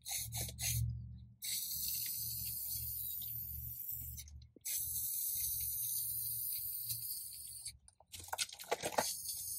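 Aerosol spray-paint can spraying: a few short spurts, then long steady hisses broken by brief pauses. A short clatter of clicks comes about eight seconds in.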